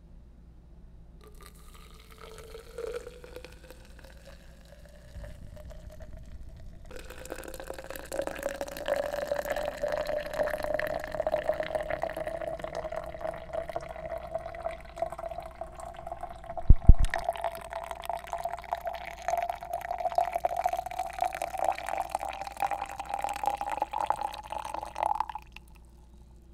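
Water poured from a stainless-steel kettle into a tall tumbler, its pitch rising steadily as the tumbler fills, with a single sharp knock about two-thirds of the way through.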